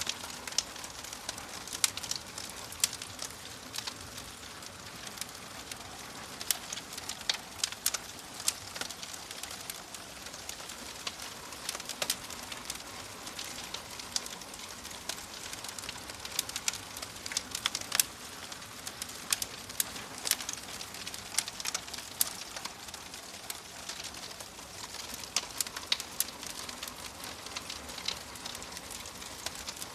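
Wood fire in a fireplace crackling: a steady soft hiss with frequent sharp, irregular pops and snaps.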